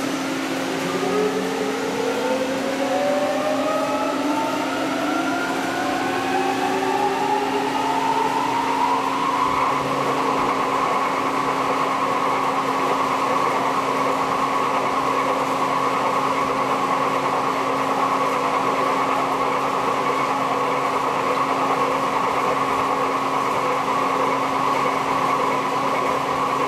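CNC machine-tool spindle spinning up, its whine rising in pitch over the first nine seconds or so, then running at steady speed with a constant whine and a low hum while cutting a radius corner.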